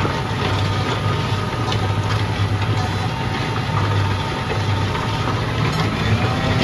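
John Deere 6250R tractor's diesel engine running steadily at low revs, with the pitch stepping up slightly near the end.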